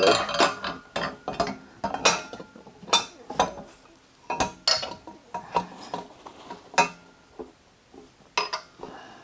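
Steel frame pieces of a Fisher mower lift being worked together by hand: irregular metallic clanks, clinks and knocks, a dozen or so spread unevenly with short quiet gaps between.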